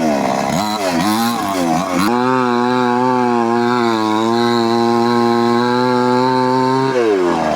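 Chainsaw engine revved in quick bursts, then held at a steady speed for about five seconds before being let off near the end.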